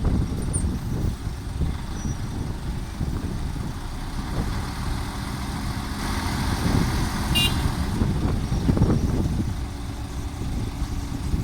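Heavy dump truck's diesel engine running with a steady low rumble. Its noise builds slightly in the middle, and a brief high squeal comes about seven seconds in.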